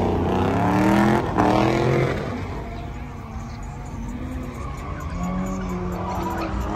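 A car engine revving up and down hard, with tyres squealing as the car spins burnouts or donuts. After about two seconds the revving drops back, leaving a lower, steadier engine note over tyre noise.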